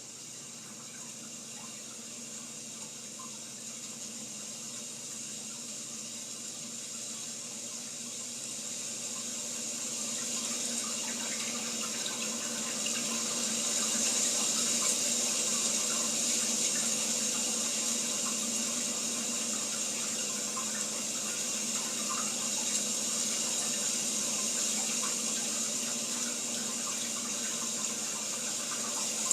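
Steady rush of running water played through the Philips 55OLED807 TV's built-in speakers. It gradually grows louder over the first quarter of a minute, then holds steady, with no deep bass.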